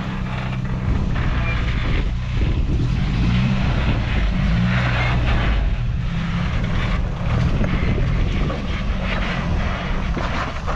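Engine of an off-road truck crawling over rock ledges, its revs rising and falling several times as the driver works the throttle.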